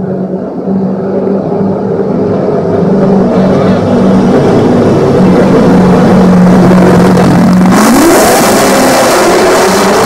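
Loud car engine growing louder as it approaches, holding a steady note, then revving up sharply about eight seconds in as it accelerates, with a rushing hiss joining in.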